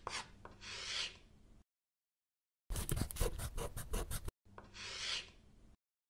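Marker-drawing sound effects: a short scratch, a swish, then about a second and a half of quick scribbling strokes, and another swish near the end.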